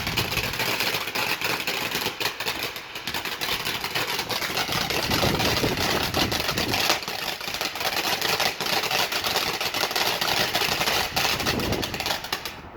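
Garden firework crackling and fizzing steadily, a dense stream of rapid crackles that cuts off suddenly near the end.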